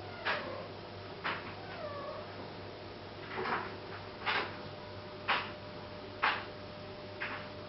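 Kittens giving a few short, falling mews, among sharp clicks about once a second.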